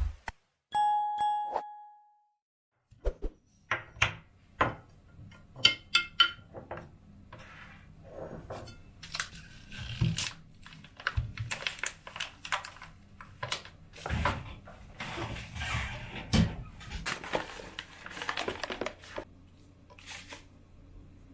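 A notification-bell chime rings about half a second in and fades after about a second and a half. Then comes kitchen handling: a foil bag crinkling as it is opened, and a plastic measuring scoop tapping and scraping against jars and an appliance, with scattered thunks and clicks.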